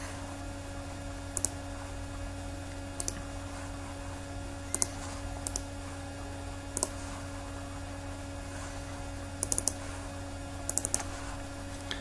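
Computer mouse clicks: single clicks and quick double clicks, with two short runs of several clicks near the end, over a steady low hum.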